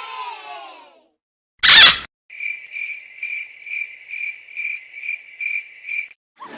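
Children cheering fade out, then a short, loud kiss sound effect, then the stock crickets sound effect: about nine evenly spaced high cricket chirps, a little over two a second, the cue for an awkward silence.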